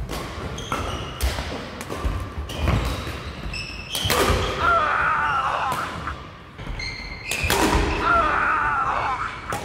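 Badminton doubles rally: a series of sharp racket strikes on the shuttlecock, with footfalls on the court floor, and a harder jump-smash hit about four seconds in. Two longer wavering sounds rise above the hits, one just after the smash and one near the end.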